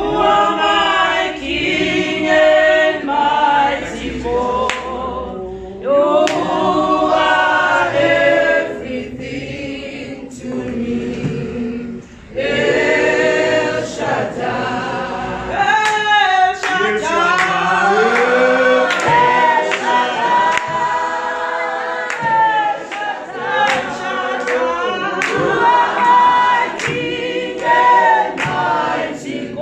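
Church choir singing a gospel song.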